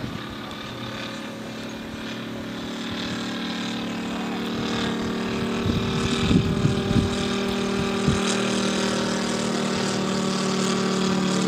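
Moki 150 cc five-cylinder radial engine of a large radio-controlled TBM Avenger model running steadily in flight, growing louder as the plane comes closer. A few brief thumps near the middle.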